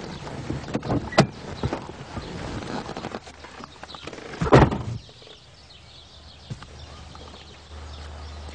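A car door is unlatched with a sharp click about a second in, then shut with one loud thunk about four and a half seconds in.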